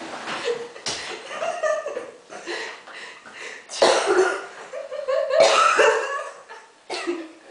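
A person's voice, with sudden loud outbursts about four and five and a half seconds in.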